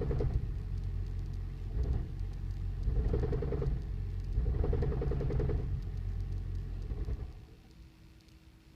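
2008 Toyota Prius's 1.5-litre four-cylinder petrol engine running rough, with a heavy knocking rumble that surges every second or two, the sign of misfiring from failed spark plugs. The engine stops about seven seconds in, leaving a faint steady hum.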